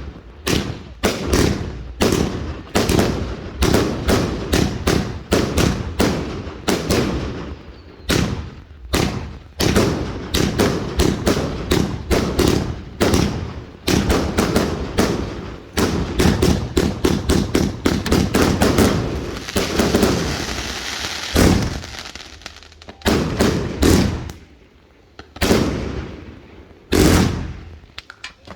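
Summer Jam firework firing shot after shot in a rapid run of bangs. About two-thirds of the way through comes a few seconds of steady hissing crackle, then the shots thin out to a handful of single bangs a second or so apart.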